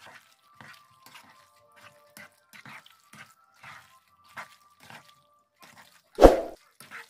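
Plastic slotted spatula stirring macaroni and potatoes through a thick cream sauce in a nonstick pan: soft wet squelches and scrapes about twice a second. A single louder thump about six seconds in.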